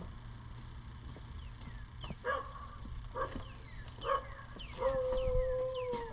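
An animal calling: two short yelps about two and four seconds in, then a long, slightly falling whine near the end.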